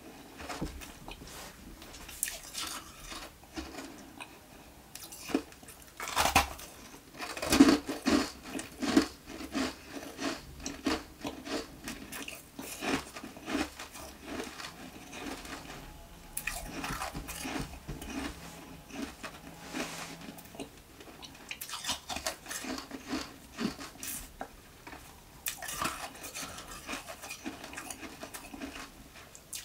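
Ice being bitten and chewed close to the microphone: a long run of sharp, irregular crunches, busiest and loudest about six to nine seconds in.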